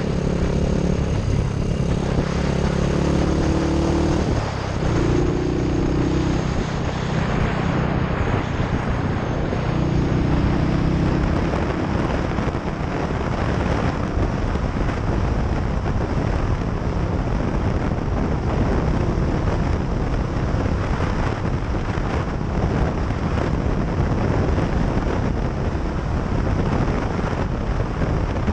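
Motorcycle engine running while riding, with wind rushing over the microphone. The engine note shifts pitch in steps several times in the first ten seconds or so, then the wind rush covers most of it.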